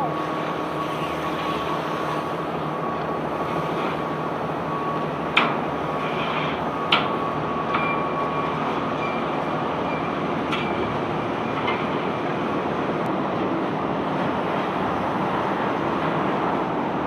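Self-unloading barge's unloading machinery running steadily, a dense mechanical rumble with a faint steady whine that stops about eight seconds in, broken by a few sharp knocks, the loudest about five and seven seconds in.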